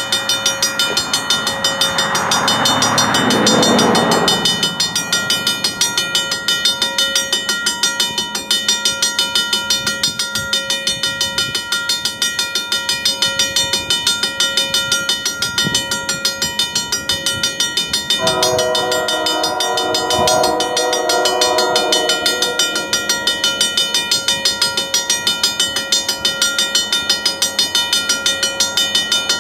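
Horn of an approaching EMD GP38-2 diesel locomotive sounding one multi-note chord for about four seconds, starting about eighteen seconds in. About two seconds in there is a brief rushing sound falling in pitch, and a rapid, even ticking runs underneath throughout.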